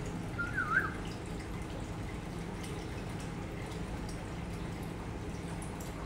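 Steady trickling and dripping of aquarium water over a low hum. About half a second in there is a brief wavering squeak.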